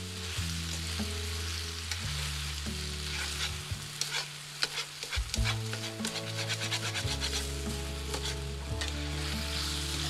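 Keichan (chicken pieces in garlic soy sauce) sizzling in a pan while a utensil stirs and scrapes, with quick clicks against the pan that are busiest in the middle. The sauce is cooking down to the point of catching and scorching.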